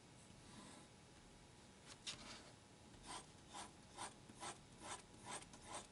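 Mechanical pencil with 0.7 mm HB graphite lead scratching across paper in short back-and-forth strokes. The strokes start about two seconds in and come about two a second.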